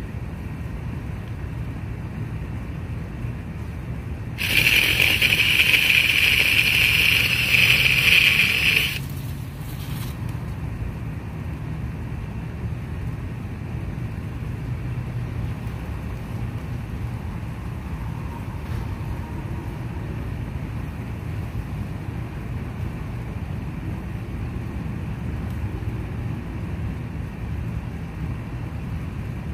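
Cordless drill driving a chainsaw attachment, cutting a fallen tree branch: a loud, high buzzing saw that starts sharply a few seconds in, runs for about four and a half seconds and stops sharply. A steady low background hum runs underneath.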